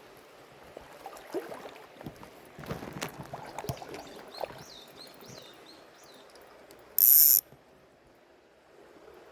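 Small spinning reel handled and cranked: irregular clicks and rattles of its mechanism for a few seconds, then a short loud hiss about seven seconds in.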